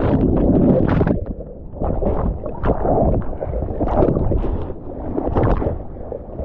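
Water rushing and splashing against a surfer's camera, with wind buffeting the microphone. The noise surges and dips every second or so.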